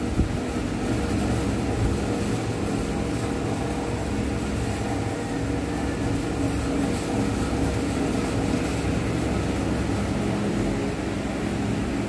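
Steady low rumble of background room noise with a faint hum and no speech.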